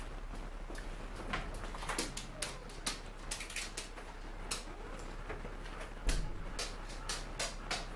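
Kittens eating from ceramic bowls: a scatter of small clicks, taps and chewing sounds, with a heavier thump about six seconds in, over a steady low hum.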